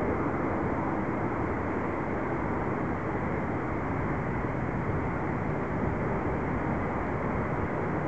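Saab 340's twin General Electric CT7 turboprop engines running as the aircraft rolls out and slows on the runway after landing, a steady, even rush of noise.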